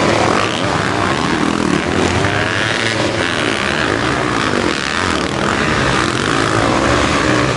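Several dirt bike engines revving hard together, their pitches rising and falling as the bikes climb a steep dirt hill.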